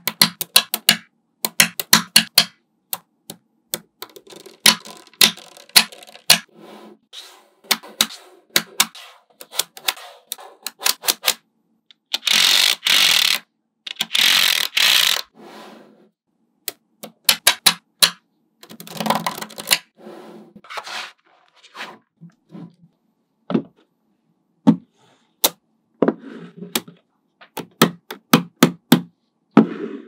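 Small magnetic balls clicking as blocks of them snap into place, in quick runs of sharp clicks with short gaps between. A little before halfway there are two longer rattling scrapes, each lasting about a second.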